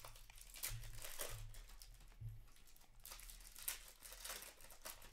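Upper Deck hockey trading cards being handled: cards slid and flicked one after another through the hands, giving a run of short, irregular papery rustles and flicks.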